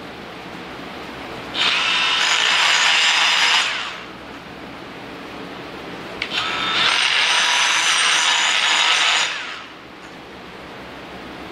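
DeWalt 20V brushless cordless die grinder with a burr grinding the edge of a laser-cut hole in steel plate, enlarging the opening so a piece of DOM tubing will fit. It runs in two bursts of about two and three seconds, with a short click just before the second.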